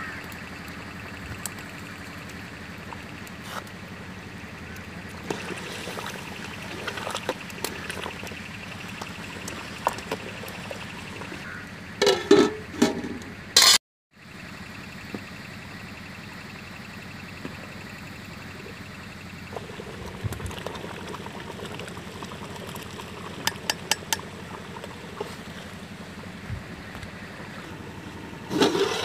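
Water poured from a jug into a cooking pot, over a steady background noise, with a few clinks and louder knocks of handling about twelve seconds in and again near the end.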